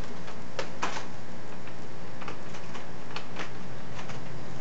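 Small, irregular clicks and ticks of a screwdriver turning the screws in a laptop's plastic screen bezel, about a dozen scattered through, over a steady low hum.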